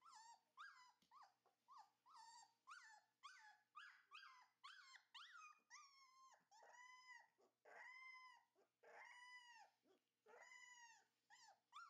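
Husky puppy crying: a quick run of short, high, falling whimpers and yips, drawing out about halfway through into longer rising-and-falling puppy howls.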